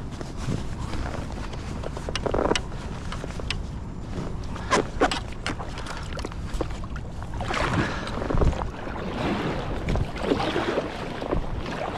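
Kayak paddle strokes dipping and splashing in river water, with wind rumbling on the microphone. The splashing becomes busier and more continuous in the last few seconds.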